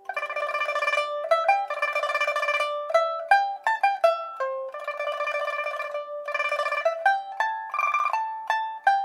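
Solo pipa playing a melody, with long notes sustained by rapid tremolo picking, broken by short runs of single plucked notes.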